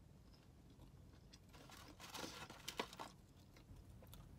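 Mostly near silence. About two seconds in comes a brief crinkling rustle of fingers in a foam takeout box picking up fries, with a sharp click near the end of it.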